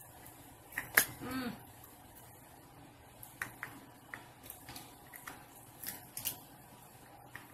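Shells of king crab legs clicking and cracking as they are worked open with a metal crab cracker and scissors: one sharp click about a second in, then light scattered clicks and snips, with a short murmured voice sound just after the first click.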